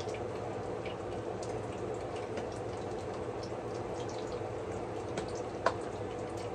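Green plantain pieces frying in oil in a pan: a steady sizzle with scattered small pops over a low steady hum. A sharper click comes about five and a half seconds in.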